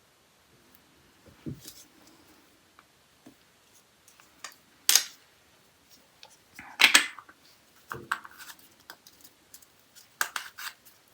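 Scattered light clicks and taps of small nail-art tools and pots being handled on a desk, with two louder brief rustling bursts about five and seven seconds in.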